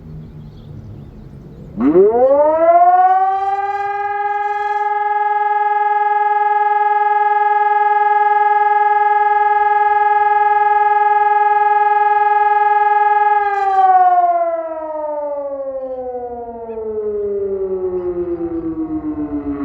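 Hörmann ECI-DT 1200 electronic siren sounding one tone of the German fire-alarm signal ('Feueralarm'). It rises sharply to a steady high pitch about two seconds in, holds for about ten seconds, then winds down slowly. A low falling tail from the previous tone is heard at the very start.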